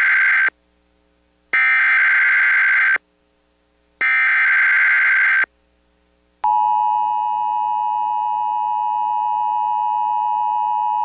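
EAS/SAME digital header bursts: a buzzy data screech about a second and a half long, heard as the tail of one burst and then two more, a second apart. About six seconds in, the steady 1050 Hz NOAA Weather Radio warning alarm tone begins.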